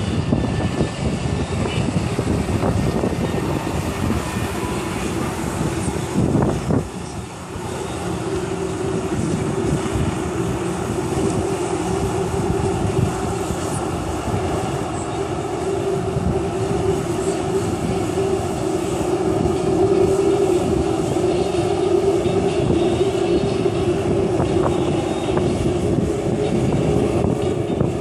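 Personal watercraft engine running hard to pump water up the hose to a Jetovator, with the rush of its water jets: a steady loud drone. There is a brief dip about seven seconds in, then a steadier hum.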